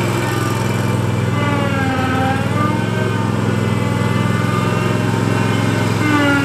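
Grasshopper 727K zero-turn mower's Kohler Command Pro 27 HP V-twin engine running steadily while the mower drives and turns, with a higher whine that sags and comes back up in pitch twice.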